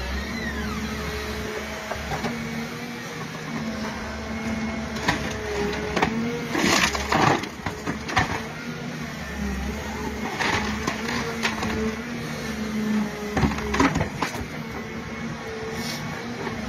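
Excavator's engine and hydraulics running under load with a shifting whine as a Groeneveldt stump shear works a tree stump. The wood cracks and splits in several sharp snaps as the jaws bite in, the loudest a little before the middle and again near the end.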